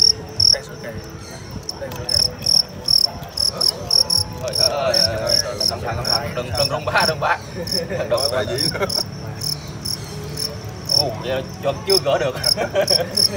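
Fighting field crickets chirping: a high, rhythmic stridulation of short pulses, about three to four a second, with a few brief pauses.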